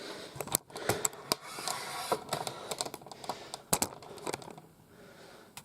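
Small plastic toy parts and their packaging being handled: irregular light clicks and clacks with some rustling, a few sharper clacks among them, thinning out near the end.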